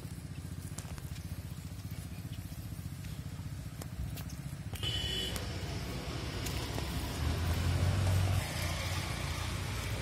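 A motor vehicle's engine running steadily, getting louder about halfway through and loudest late on.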